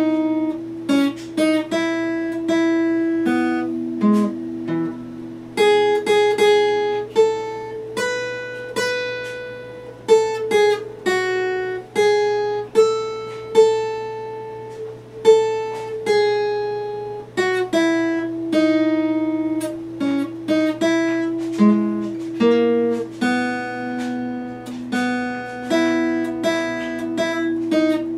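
Epiphone acoustic guitar played solo at a slow pace: single notes plucked one after another, each ringing out, over held bass notes, with no singing.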